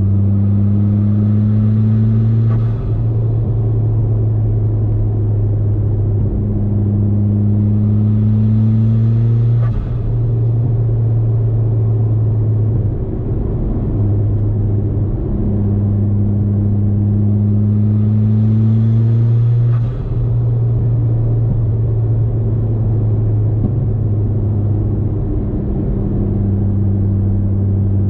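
Mitsubishi Lancer Ralliart's turbocharged 2.0-litre four-cylinder engine droning steadily at highway cruise, heard from inside the car. Three times a slowly rising tone rides over the drone and then breaks off with a short hiss and a brief dip, about three, ten and twenty seconds in.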